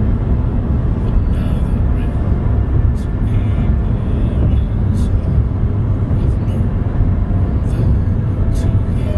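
Steady low rumble of tyres and engine heard inside a car cabin at highway speed, with a few faint clicks.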